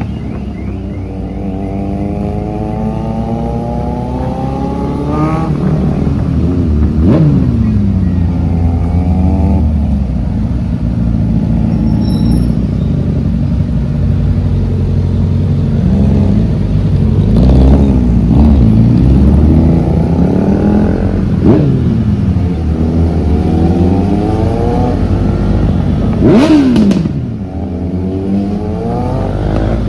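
Sport motorcycle engines accelerating and revving, their pitch climbing and dropping again and again, with several sharp throttle blips over a steady low engine rumble.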